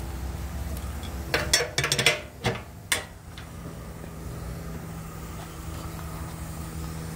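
Steel firebox door of a wood-fired boiler swung shut and latched: a quick run of metal clanks and rattles about one to three seconds in, over a steady low hum.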